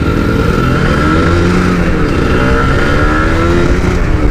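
Two-stroke Kawasaki Ninja 150 engine running through an aftermarket 8ty Racing exhaust while riding, its revs rising and falling gently over steady road and wind noise.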